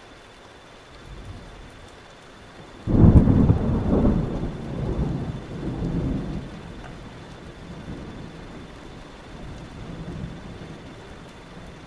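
Thunderstorm: steady rain hiss, then a sudden thunderclap about three seconds in that crackles and rolls in several surges before fading to a low rumble.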